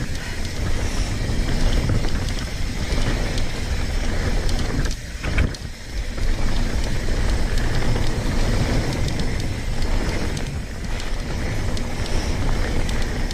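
Wind rushing over the camera microphone and mountain bike tyres rolling fast on dirt singletrack, with many small rattles and clicks from the bike. A brief lull comes about five seconds in, with one sharp knock in it.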